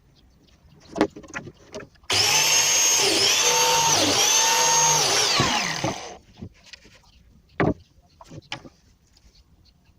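Biscuit jointer motor starting with a whine, dipping in pitch twice as the blade is plunged into the plywood to cut slots, then winding down with a falling pitch, with a few knocks of the board and tool being handled around it.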